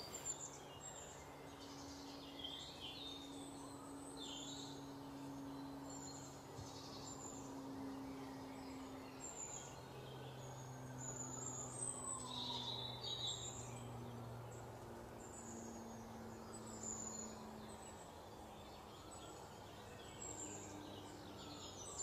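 Faint woodland ambience with scattered short, high bird chirps, over faint low steady tones that shift in pitch every few seconds.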